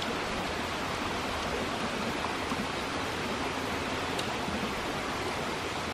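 Steady rushing of flowing water from a stream, an even hiss with no breaks.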